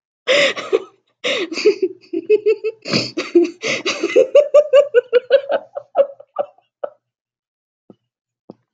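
A woman's uncontrollable laughing fit: breathy bursts of laughter, then a long run of quick, high-pitched 'ha' pulses, about five a second, that trail off about seven seconds in.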